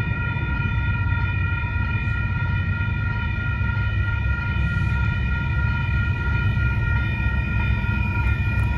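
Railroad grade-crossing warning bell ringing steadily as a set of sustained high tones, over a constant low rumble.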